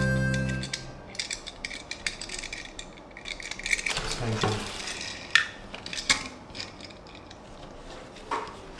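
A Tomica die-cast toy car and its packaging being handled, giving a string of small clicks, light metallic knocks and rattles. The end of background music fades out in the first second.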